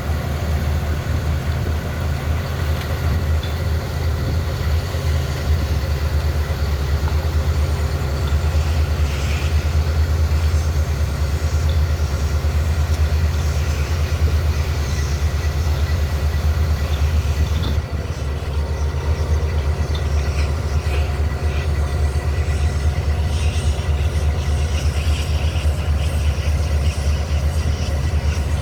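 A heavy engine running steadily at idle, a loud low drone with faint crackling above it; the higher sounds change abruptly about 18 seconds in.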